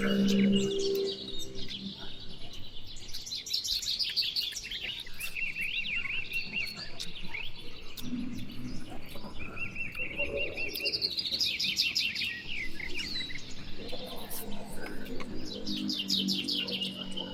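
Small birds singing: repeated high chirping phrases and fast trills that come and go every few seconds, over a thin high steady tone. A lower pitched sound with a steady pitch is heard briefly at the start and again near the end.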